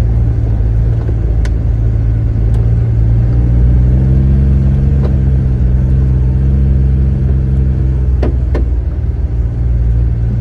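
Car engine running steadily, its pitch rising a little midway and then settling, with a few sharp, irregular clicks scattered over it: the clicking noise being recorded.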